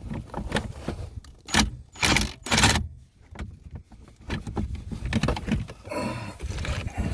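Irregular clicks, knocks and rattles of a truck's fuse panel and its plastic trim being worked loose by hand, with a cluster of louder knocks between about a second and a half and three seconds in and more rattling near the end.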